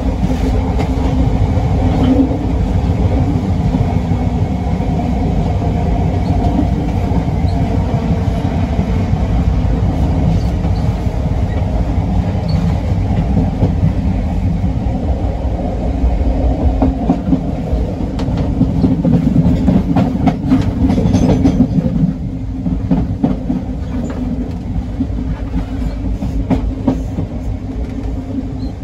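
Class 456 electric multiple unit on the move: a steady low rumble with repeated clicks, which grows a little louder and then drops back suddenly about 22 seconds in.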